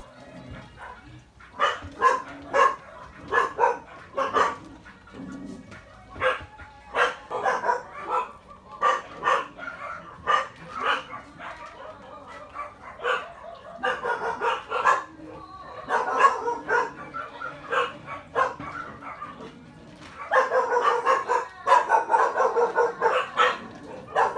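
Dogs barking over and over in short, repeated barks, the barking coming thickest and fastest near the end.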